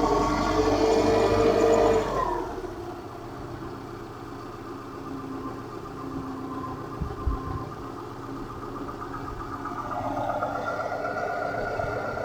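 Subaru EJ251 2.5-litre flat-four engine running cold with a knock, which the owner says disappears abruptly once the engine warms up. It runs at raised revs for about two seconds, falls back to idle, and picks up again about ten seconds in, with a single thud near the middle.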